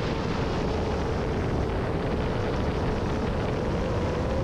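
Steady rushing noise with a faint hum that dips and rises slightly in pitch: a distant 7-inch FPV quadcopter's motors and propellers heard from the ground.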